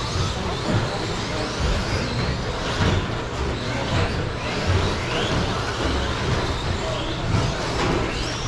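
Several electric radio-controlled short-course trucks racing on a carpet track: motors whining up and down in pitch with the throttle, over a constant rumble of tyres and running gear.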